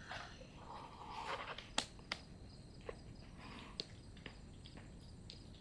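Faint, scattered light clicks and soft rustling.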